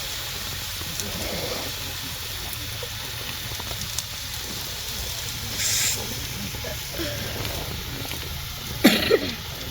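Food sizzling on a camping grill, a steady hiss, with a brief louder surge of sizzle about six seconds in. A person coughs near the end.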